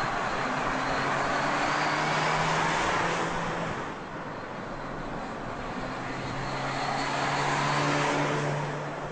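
MINI Countryman driving at speed: a steady engine hum that edges up in pitch, over tyre and wind noise. It is loud for the first few seconds, dips about four seconds in, and swells again near the end.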